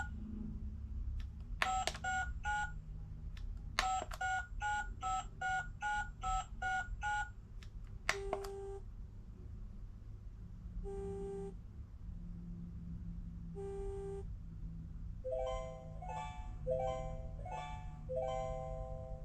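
Clementoni Baby Smartphone toy giving electronic beep tones. First three short beeps, then a quick run of about ten beeps at changing pitches. Three lower, longer beeps follow a few seconds apart, and near the end come quick rising runs of notes. A steady low hum runs underneath.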